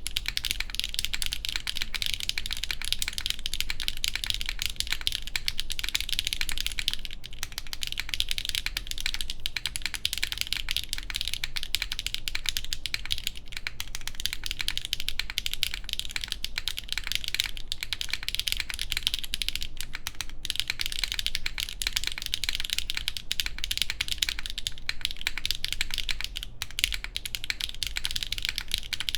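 Fast, continuous typing on a Geonworks F1-8X V2 mechanical keyboard with HMX Macchiato switches, an aluminum plate and GMK keycaps: a dense stream of crisp key clacks. The case screw under the spacebar is removed.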